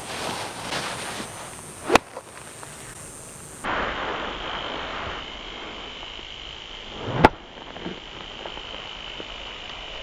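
A golf club strikes a ball on a slow practice swing: one sharp click about seven seconds in, just after a short swish of the club. A smaller click comes about two seconds in, and a faint steady high tone runs under the second half.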